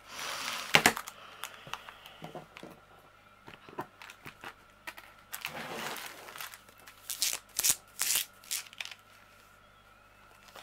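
Clear plastic zip-lock bags crinkling and rustling as they are handled and set down, in several short bursts with a few light clicks between them.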